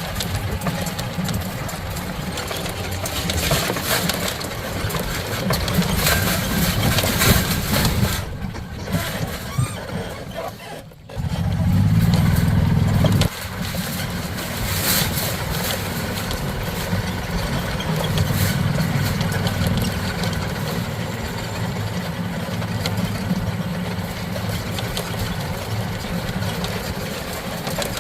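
Vehicle engine running steadily while driving. About ten seconds in the sound drops away briefly, then comes back louder for a couple of seconds before settling to a steady run again.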